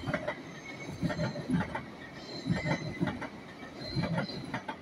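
A GWR passenger train's wheels knocking in irregular clusters over rail joints and points, with brief high wheel squeals and a steady low rumble.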